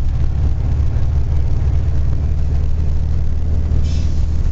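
Cabin drone of a moving 1970 VW Transporter: the steady low hum of its rear air-cooled flat-four engine mixed with road noise. A brief hiss comes about four seconds in.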